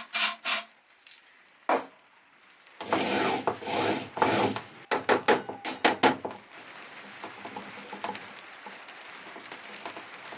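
Rubbing and scraping strokes from hand work on the mitre saw's mechanism: a few short strokes at the start, one on its own near 2 s, then a louder run of dense scraping for about three seconds, after which only a faint steady background remains.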